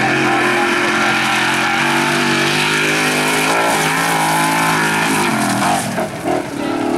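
Formula Offroad racing buggy's engine running hard at high revs. The pitch wavers a few seconds in, and the engine eases off briefly near the end.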